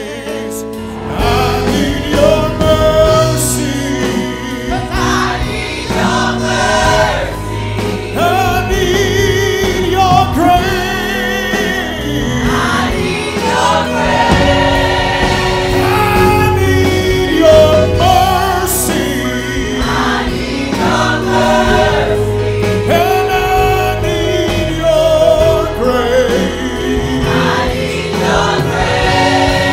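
Gospel choir singing with a woman soloist on a microphone, over sustained low instrumental notes.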